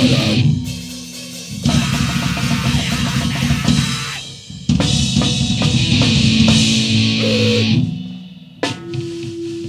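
Grindcore/noise band playing: loud drum kit and distorted electric guitar in short blasts that break off abruptly and start again, with held notes ringing in the gaps and a single held tone near the end.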